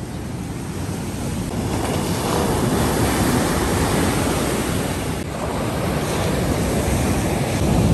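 Ocean surf breaking and washing up a sand beach, with wind buffeting the microphone. The rush grows gradually louder.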